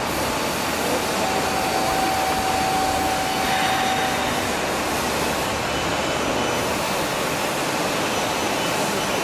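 Steady machinery noise in a metal-fabrication workshop, with a faint steady whine from about a second in that stops after about three seconds.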